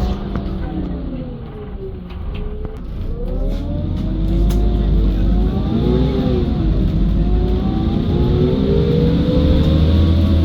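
Menarinibus Citymood 12 CNG city bus heard from on board: a low drivetrain rumble and whine that falls in pitch as the bus slows, then rises as it pulls away again, with a brief dip in pitch partway through. The engine itself is heavily soundproofed.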